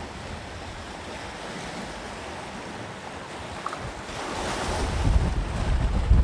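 Sea waves breaking and washing on the shore, with a surge of surf building about two-thirds of the way in. Wind buffets the microphone, louder near the end.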